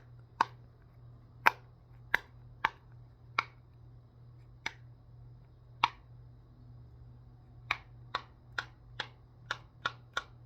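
Pop-it fidget toy being popped, its bubbles pressed through one at a time: about fourteen sharp pops at uneven intervals, coming quicker near the end.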